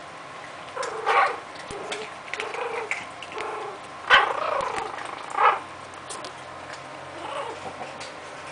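Maltese puppies giving short yips and whimpers while playing together, a string of brief high cries. The loudest come about four and five and a half seconds in.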